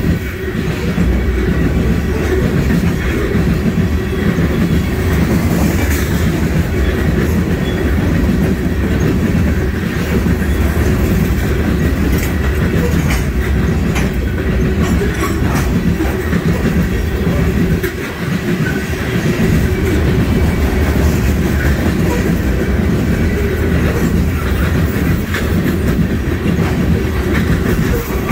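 Covered hopper cars of a freight sand train rolling past close by: a steady, heavy rumble of steel wheels on the rails with a rhythmic clickety-clack and scattered sharp clicks.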